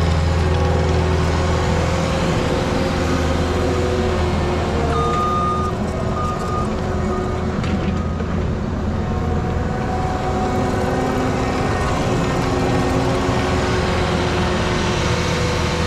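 Diesel engine of a Cat compact track loader running as the machine drives and turns. Its low, steady engine note weakens a little after about five seconds. A reversing alarm beeps about three times about five seconds in.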